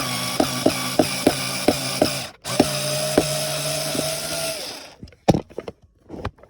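Electric screwdriver running in two bursts, driving a screw into the wood of a drawer front to bore a handle hole, with regular clicking about three times a second during the first burst. It stops briefly about two seconds in, runs again until near the end, and a few separate knocks follow.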